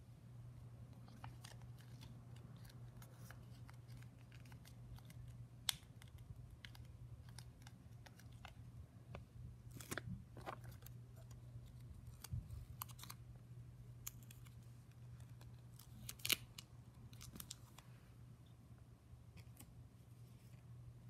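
Quiet handling of paper stickers on a journal page: scattered small clicks and rustles as stickers are peeled and pressed down, with a few sharper snips about 6, 10 and 16 seconds in. A steady low hum runs underneath.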